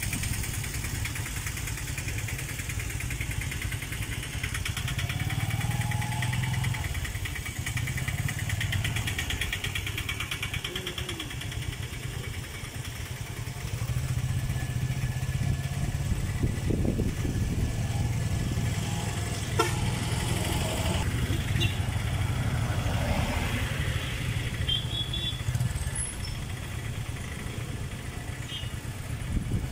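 An engine idling steadily, with a vehicle passing on the road near the start.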